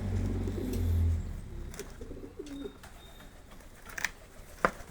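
A low hum fades out after about a second, then a bird, likely a pigeon or dove, coos briefly. Two sharp clicks come near the end.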